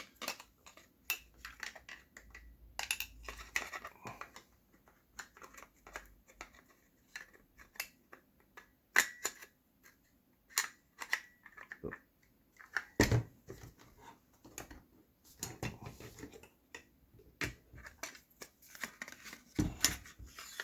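Irregular clicks, taps and small knocks of metal and plastic airsoft rifle parts being handled, as the inner barrel and hop-up assembly is slid into the rifle to test the fit. There are two heavier knocks, about halfway through and near the end.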